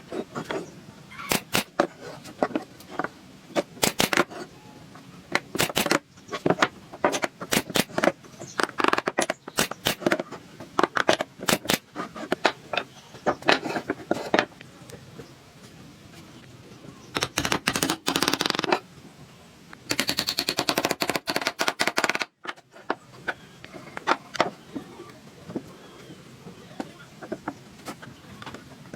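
Irregular sharp knocks and taps of tools working wood, with two stretches of rapid rattling strikes, the first beginning a little past halfway and the second about two thirds of the way in.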